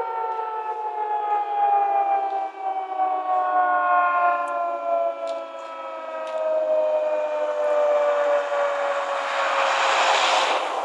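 Nuclear warning sirens at a naval base sounding a steady tone whose pitch falls slowly and evenly throughout: the sirens winding down at the end of a test. A broad rushing noise swells over them near the end.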